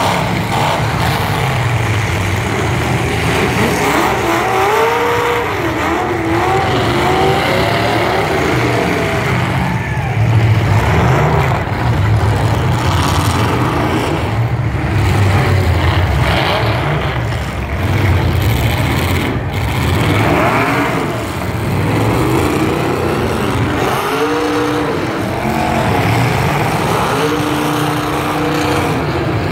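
Several demolition-derby truck engines revving hard at once, their pitch rising and falling as they accelerate and back off, with a sharp bang about two-thirds of the way through.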